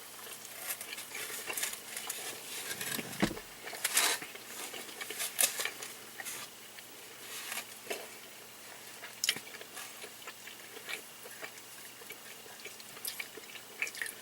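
Close-miked eating sounds: people chewing and biting food, with scattered small clicks and crackles, and a brief low thump about three seconds in.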